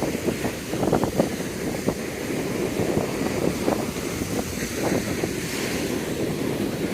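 Wind buffeting the microphone, gusting unevenly, over the steady wash of sea surf on a beach.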